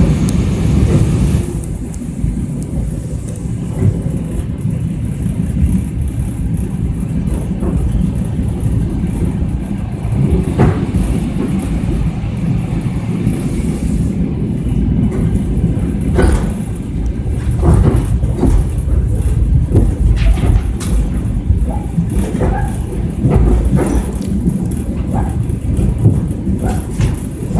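Suburban electric train running at speed, heard from inside the carriage: a loud steady low rumble of wheels on rails, with irregular sharp clacks and knocks from about ten seconds in.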